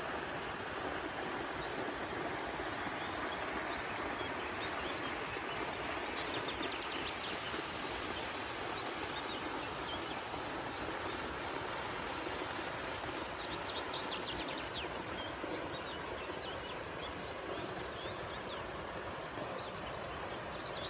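River water rushing steadily, with no break.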